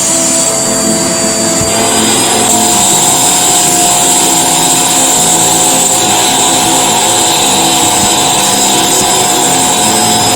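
HART Upright Pro upright vacuum cleaner running steadily and loudly, its motor giving a steady high whine. The whine steps up a little in pitch about two seconds in.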